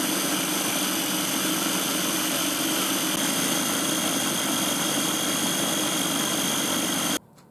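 KitchenAid 5-cup food chopper's motor running steadily at full speed with a whine, pureeing steamed cauliflower into mash; it cuts off suddenly near the end.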